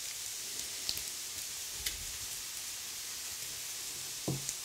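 Sliced onions cooking in a little butter in a pan, a faint steady sizzle with a few light clicks.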